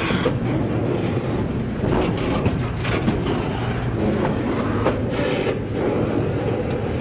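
Freight train rolling past, steel wheels clacking over rail joints, with a steady low drone and occasional clanks.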